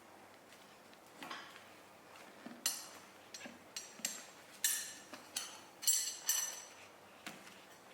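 Steel tire spoons clinking against the metal wheel rim and each other as a tire is levered off. A run of about ten sharp, ringing clinks that starts a couple of seconds in.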